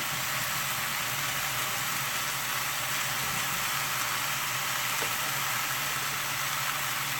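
Seasoned chicken pieces sizzling steadily in a thin-bottomed pot on the stove, an even hiss over a steady low hum.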